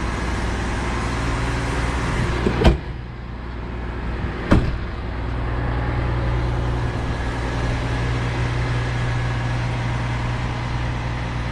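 Two sharp bangs about two seconds apart, typical of motorhome exterior storage-bay doors being shut, over a steady low hum of running machinery.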